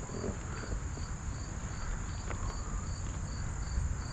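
Insects chirping in the summer vegetation: a steady high trill and, under it, a short chirp repeating about two and a half times a second, over a low rumble.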